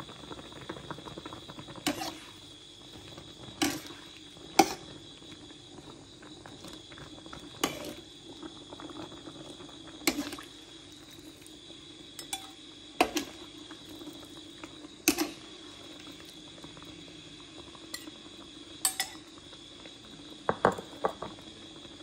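Dishes and metal utensils clinking and knocking, a dozen or so separate sharp clinks spaced a second or more apart, over a steady low hum and a faint steady high tone.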